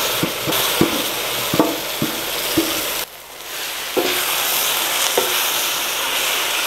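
Marinated beef sizzling in hot oil and ghee in an aluminium pot, with a wooden spoon scraping and knocking against the pot as it is stirred. The sizzle drops off suddenly about three seconds in, then comes back.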